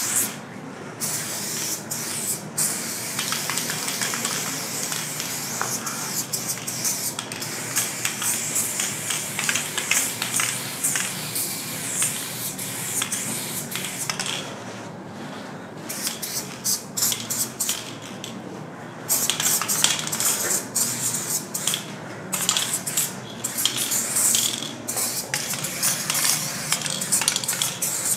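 Aerosol spray-paint cans hissing in repeated bursts of varying length, broken by short pauses, with light metallic clinks in between.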